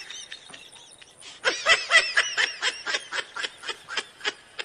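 High-pitched snickering laughter in short rapid bursts, about four a second, starting about a second and a half in and fading near the end.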